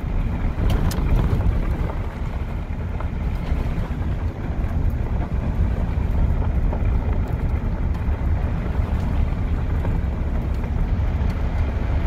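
Steady low wind rumble buffeting a cell phone's microphone in a moving car, mixed with the car's running and road noise.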